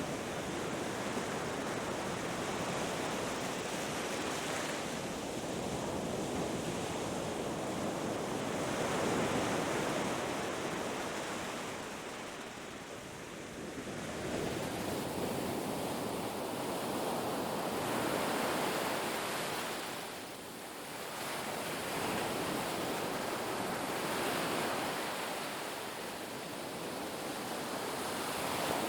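Ocean waves breaking and washing on a beach: a continuous surf rush that swells and ebbs slowly, with lulls every several seconds between waves.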